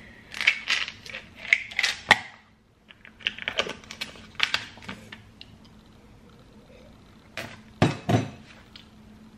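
A plastic pill bottle being handled: quick runs of clicks and rattles from the cap and the tablets inside, then a couple of louder knocks near the end.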